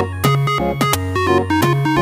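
Background electronic music: synthesizer notes over a steady bass beat.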